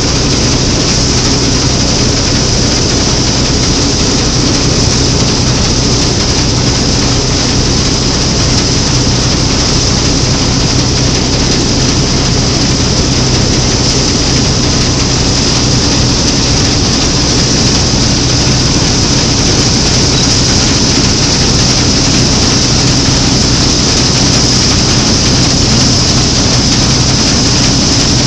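Claas Matador Standard combine harvester running steadily under load while cutting and threshing triticale, heard from the open driver's platform: its engine and threshing machinery make one loud, even, unbroken sound.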